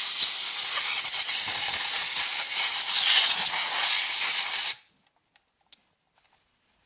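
Compressed-air blow gun hissing steadily as it blasts dust out of an electronic module, cut off abruptly about five seconds in, followed by a couple of faint clicks.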